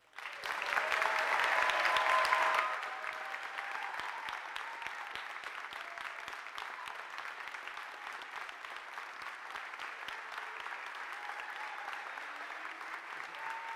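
Audience applauding, loudest in the first couple of seconds, then settling into steady clapping.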